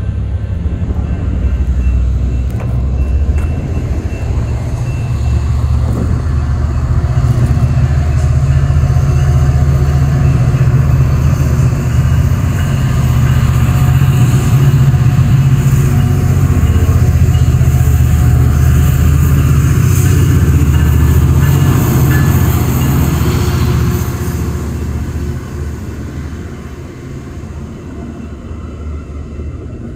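Metra commuter train with bilevel gallery cars running past a grade crossing: a steady low rumble, loudest in the middle, that drops away about 25 seconds in.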